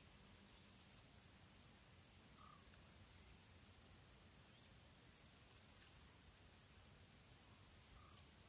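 Faint chirping insects: a steady high trill with a sharper chirp repeating about twice a second.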